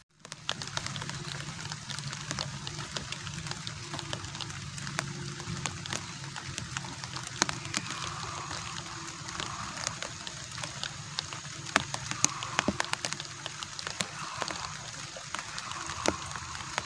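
Riverside ambience: a steady hiss with many scattered sharp clicks and drips, and a low steady hum underneath. A few short rising-and-falling calls come in the second half.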